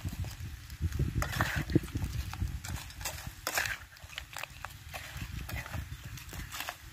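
Metal spatula stirring crabs in a wok: irregular clacks and knocks of the spatula against the pan and the crab shells, with short bursts of scraping.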